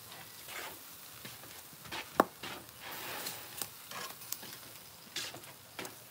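Meat sizzling on a barbecue grill, with metal tongs clicking and scraping on the grill grate as the pieces are turned. One sharp metallic clank about two seconds in.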